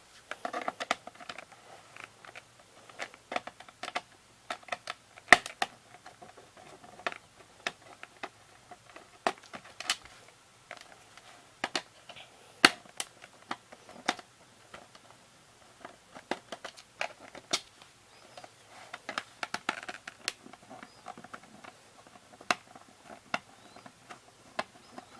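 Scattered sharp clicks and taps of a plastic VHS cassette shell being handled as its screws are taken out and it is taken apart, with light rustling in between.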